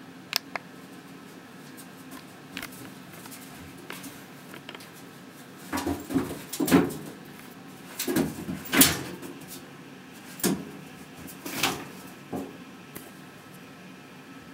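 A young Savannah cat's paws and body knocking and scrabbling against the sides and floor of an empty bathtub as it spins chasing its tail. The knocks come in irregular bursts, busiest in the middle.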